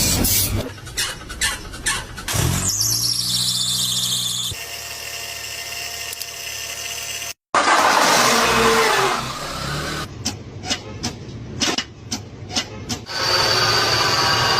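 A string of short, abruptly cut clips of car engine noises. There is a high-pitched squeal over engine hum, a steady whine, a run of sharp ticks or knocks, and another steady high squeal near the end.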